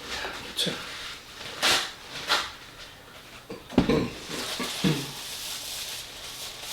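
Close-up eating noises of a man eating spaghetti: a few short slurping, breathing and gulping sounds, with small throaty noises from swallowing.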